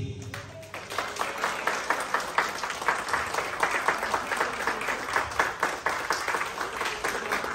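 A small crowd of party guests clapping their hands in applause, starting about half a second in and keeping up a dense, steady patter of claps.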